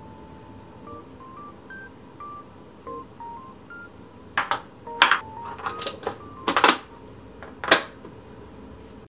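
A plastic bento box's lid being put on and its side latches snapped shut: a run of sharp plastic clicks and clacks starting about four seconds in. Soft background music of single beeping notes plays throughout.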